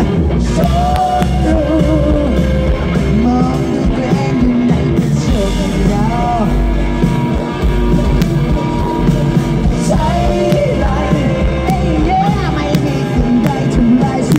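Live band playing loudly, with a singer's voice over electric guitar, drums and bass.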